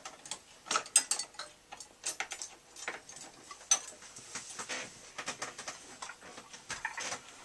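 A stoneware mug being picked up and drunk from: scattered small clicks and taps at irregular intervals, the sharpest about a second in and just before four seconds.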